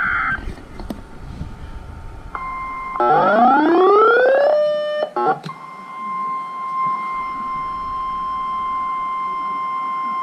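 Emergency alert tones. A short burst of screeching digital header data ends just after the start. About three seconds in comes a rising swept tone. Then the weather radio's single steady warning alarm tone sounds for about six seconds and cuts off near the end, announcing a tornado warning.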